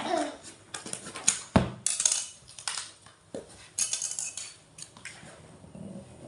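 Clicking, rattling and knocking of a package being handled and opened, with one heavier knock about a second and a half in.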